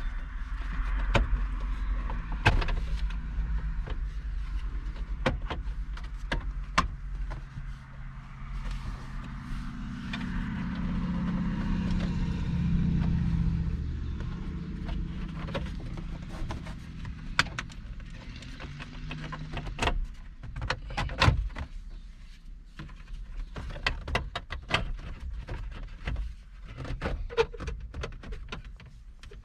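Plastic dashboard trim bezel being pried and worked loose from its retaining clips: scattered plastic clicks, knocks and rattles, over a steady low hum.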